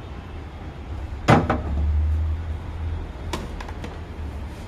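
Freezer compartment door inside a single-door refrigerator being handled. A sharp double knock comes about a second in, then a few lighter clicks near the end, over a low steady rumble.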